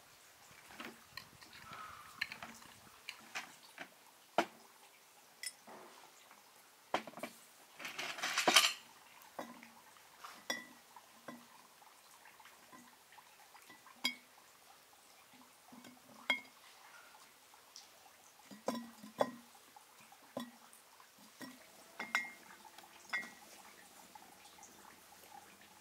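Glass bottles and a glass bowl clinking and knocking on a tabletop as they are handled, with sliced quince being moved about and dropped into the bottles; short separate clinks every second or so and one louder rattle about eight seconds in.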